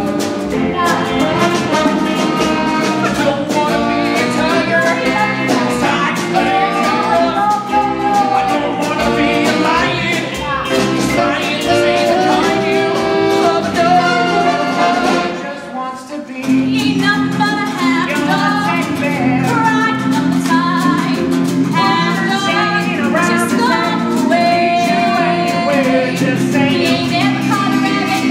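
Singers performing a rock-and-roll stage-musical number with a live pit band. The music dips briefly about sixteen seconds in, then carries on.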